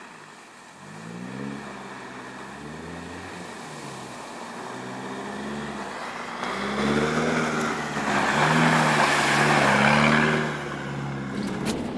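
Nissan Patrol GR 4x4 engine revving up and down as it drives through mud, growing louder as it comes close. Its spinning tyres throw up mud with a loud hiss from about 8 to 10 seconds in.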